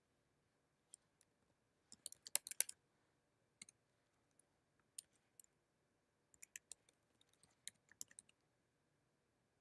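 Faint keystrokes on a computer keyboard while typing: a quick run of several keys about two seconds in, the loudest part, single taps after it, then another looser run near the end.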